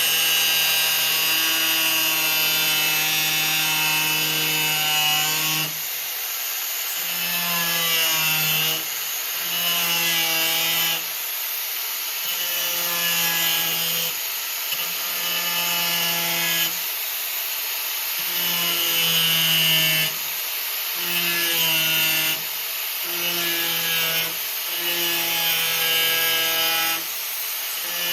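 Electric power tool cutting a square opening through the car's sheet metal: a loud, steady motor whine in about ten cuts of one to six seconds each, with short lulls between them.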